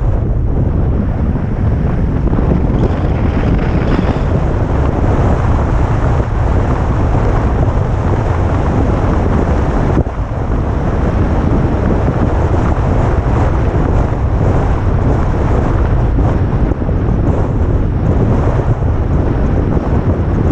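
Bad wind noise on the microphone of a camera on a moving vehicle: a loud, steady rumbling buffet, heaviest in the deep bass, that drowns out everything else.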